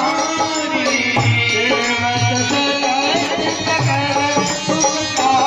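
Devotional aarti music: a melody with singing over a hand drum keeping a steady beat.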